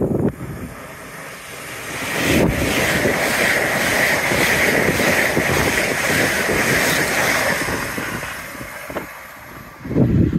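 LNER Azuma high-speed train passing along the platform. Its rushing noise builds about two seconds in, holds for some six seconds, and dies away shortly before the end.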